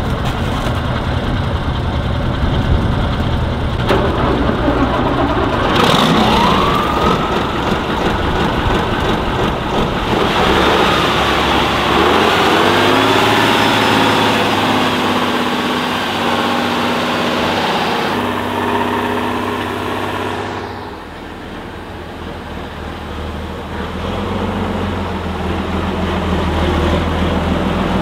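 Heavy six-wheel-drive off-road trial trucks' diesel engines working through deep mud, the revs rising and falling several times, and easing off for a moment a little past the middle.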